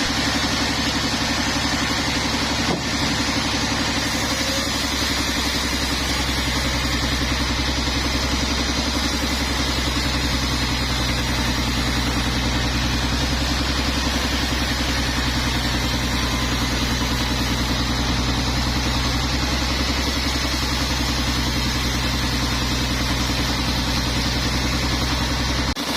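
Sawmill machinery running with a steady engine-like drone. A lower tone swells in and out now and then, as if under changing load.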